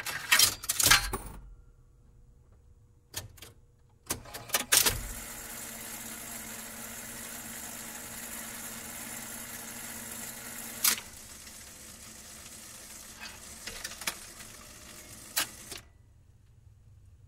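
Vinyl record surface noise between songs. Clusters of loud clicks come near the start and again about four seconds in. Then comes steady hiss and crackle from the stylus in the groove, with a sharp pop partway through, stopping shortly before the end.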